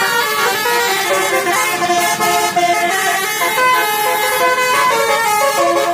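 Indonesian tour bus basuri telolet horn, a multi-tone musical air horn playing a quick run of notes that step up and down in pitch.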